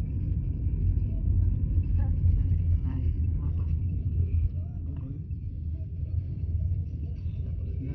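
Road noise inside a moving car: a steady low rumble of engine and tyres, easing a little about halfway through.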